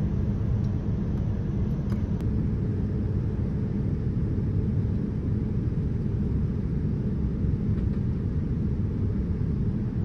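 Jet airliner cabin noise in flight: a steady low rumble of engines and airflow.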